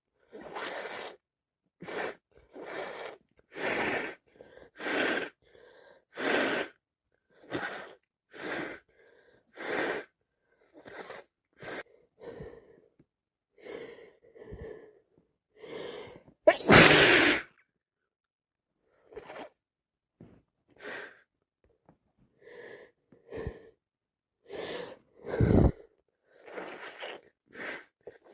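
A woman with a head cold sneezing, sniffing and taking buildup breaths in a long run of short bursts, about one a second. The loudest sneeze comes about two-thirds of the way through, with another strong one near the end.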